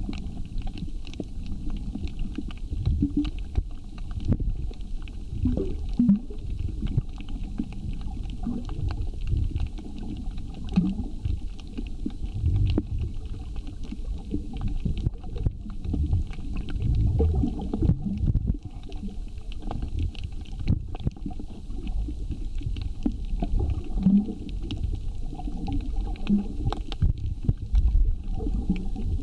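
Underwater sound on a coral reef heard through a camera housing: a low, uneven rumbling and gurgling of moving water, with many scattered sharp clicks.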